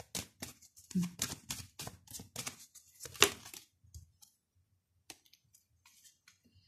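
Tarot cards being shuffled by hand: a quick run of sharp card snaps, about five a second, for the first three and a half seconds, then only a few faint taps as the shuffling stops.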